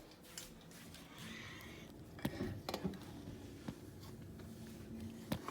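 Faint handling noise: a brief rustle and several light, sharp clicks and taps as things are moved about.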